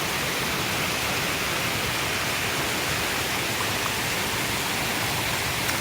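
Waterfall cascades rushing: a steady, even roar of falling water.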